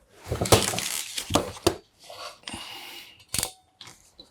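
Small hand tools and a crimp connector being handled at close range while a connector is fitted to a thin wire: rustling and scraping with several sharp clicks, the loudest click a little after three seconds in.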